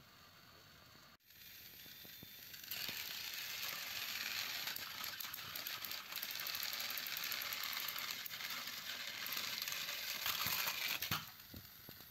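Motorized plastic toy train engines on plastic track, their small motors and gears whirring with a rattling clatter as two engines push head-to-head, for about nine seconds; it ends in a brief louder clatter as the trains derail and tumble onto the carpet.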